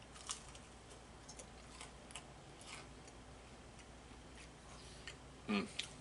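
Faint, scattered crunching clicks of a man chewing crispy deep-fried gar. About five and a half seconds in, a short, louder sound falls in pitch.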